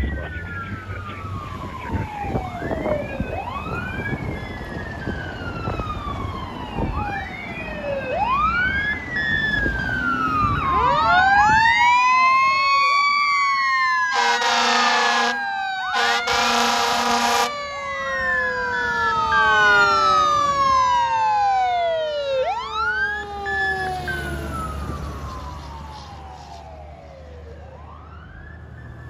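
Fire engine and ladder truck responding with several sirens wailing at once, their rising and falling sweeps overlapping over a low engine rumble. About halfway through, two long blasts of an air horn. The sirens fade near the end.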